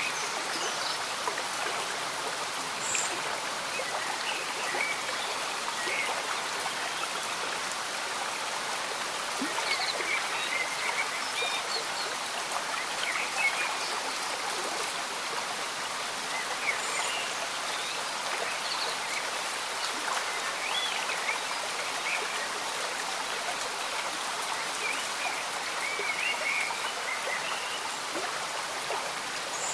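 Slow-moving stream bubbling and gurgling steadily, with many small scattered gurgles over the rush of water, and gentle rain falling.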